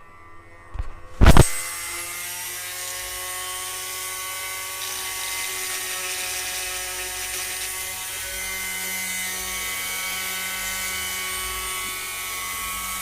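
INGCO MG1309 electric mini die grinder (rotary tool) switched on with a sharp click about a second in, then running steadily at high speed with an even whine.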